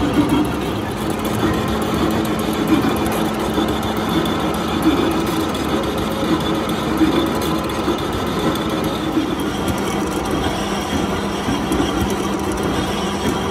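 Vertical lathe turning the hub of a large cast gear blank: a steady machine hum under the cutting noise, with irregular clattering ticks of metal chips.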